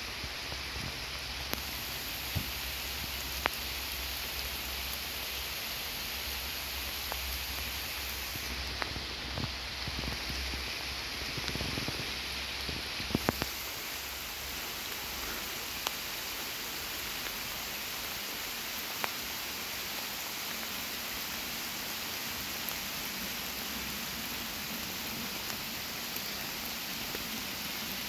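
Heavy rain falling in a steady hiss, with scattered sharp taps.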